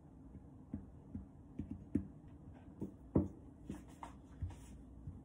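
A knife spreading red bean paste over bread dough on a silicone baking mat: soft, irregular taps and scrapes of the blade, with one louder knock about three seconds in.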